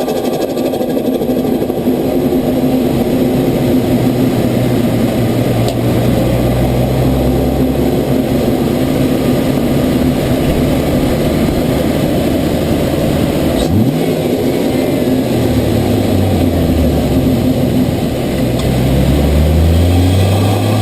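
Turbocharged Barra 4.0-litre inline-six engine of a Ford Falcon F6 Typhoon, fitted with a GT3540 turbo and no blow-off valve, running in the engine bay. Its note holds steady for a long stretch, rises quickly once about two-thirds through, then the revs go up and down near the end.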